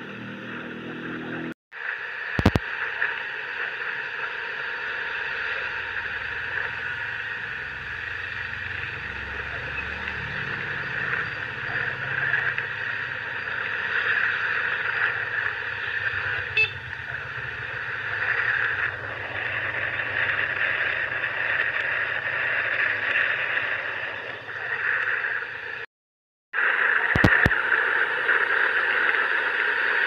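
Motor scooter ridden along a wet street: steady engine and road noise with the hiss of tyres on wet tarmac. The sound cuts out briefly twice, about two seconds in and near the end, each time followed by a sharp click.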